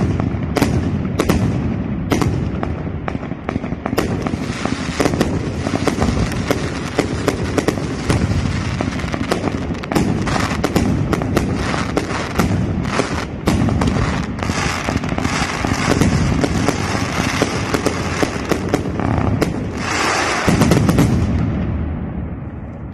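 Aerial fireworks firing shot after shot in quick succession, sharp bangs over continuous crackling. A louder cluster comes near the end, then the noise dies away.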